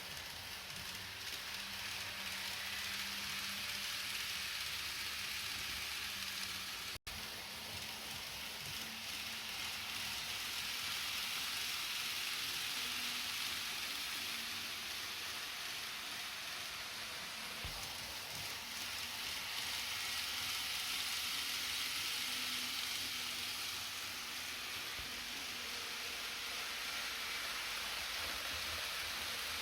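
N-gauge E6 series Komachi Shinkansen model train running on its track: a steady hiss of small wheels on rail and motor, swelling and easing as it goes round. The sound breaks off for an instant about seven seconds in.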